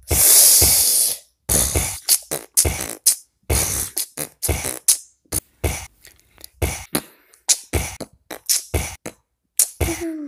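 Beatboxing: a long hissing cymbal-like breath at the start, then a run of short, sharp mouth-percussion hits with brief silences between them.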